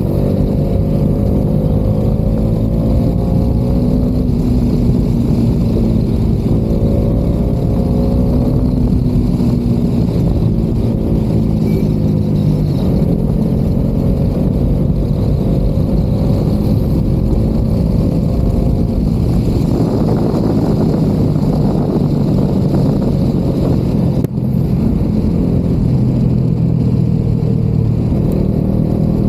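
Bajaj Dominar 400's single-cylinder engine pulling hard through the gears. Its pitch climbs several times and drops back at each upshift, heard from inside the rider's helmet.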